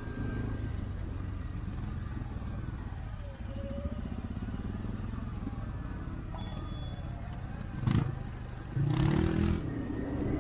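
CF-Moto 450 ATV engine running steadily at low revs. A sharp knock comes about eight seconds in, and a brief loud call follows about a second later.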